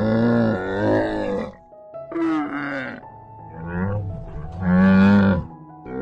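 Camel calling in four long, wavering calls, the last near the end the loudest, over faint background music.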